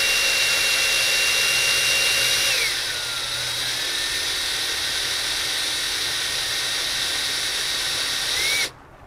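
Power drill with a titanium-coated bit running with a steady high whine, boring a pilot hole for a self-tapping screw. About two and a half seconds in, the whine drops in pitch as the drill slows, then runs on at the lower speed and stops suddenly near the end.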